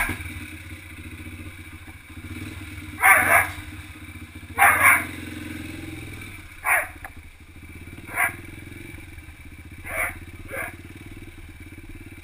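Yamaha TT-R125 dirt bike's single-cylinder four-stroke engine starting up at the very beginning, then running steadily at idle and low speed. A Doberman puppy barks in short sharp yelps over it, about six times, some in quick pairs.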